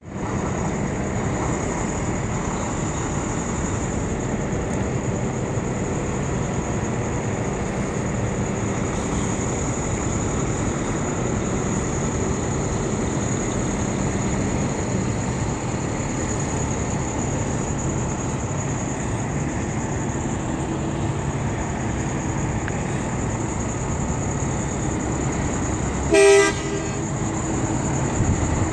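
Tractor-trailer's diesel engine running steadily while the rig is backed through a turn, with one short horn toot near the end.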